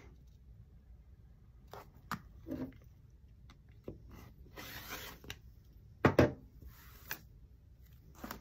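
Rotary cutter rolling along the edge of an acrylic ruler, slicing through the layered fabric of a pieced quilt block on a cutting mat: a short rasping cut a little before the middle, then a couple of sharp knocks as the tools are handled, with faint scrapes of hands on the ruler around them.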